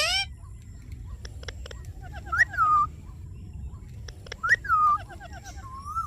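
Indian ringneck parrot calling: a loud call cut short right at the start, a few clicks, then two short call phrases about two seconds apart, each a quick rising-then-falling note with a rapid string of lower notes, and a brief rising note near the end.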